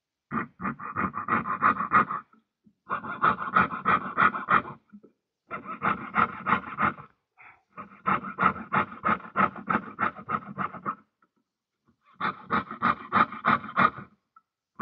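Jeweller's piercing saw cutting through sheet metal in quick, even strokes, about four to five a second. The sawing comes in five runs of a couple of seconds each, with short pauses between.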